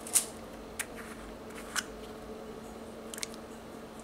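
Plastic screw lid of a small Mechanic solder paste jar being twisted open and handled: four short, sharp clicks and scrapes, the first just after the start and the loudest, over a faint steady hum.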